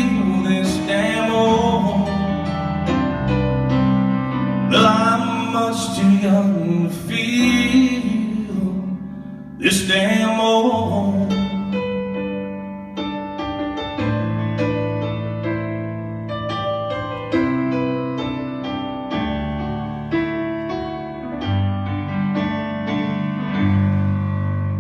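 Live country song ending: the band plays the closing bars, with a drawn-out bending melody line in the first half, then keyboard notes ringing out and slowly fading toward the end.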